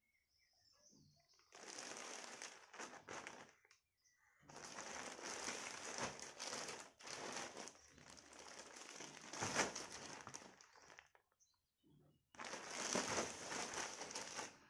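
Plastic poly courier mailer bag crinkling and rustling as it is handled and cut open with scissors. The rustling comes in three stretches with short pauses between them.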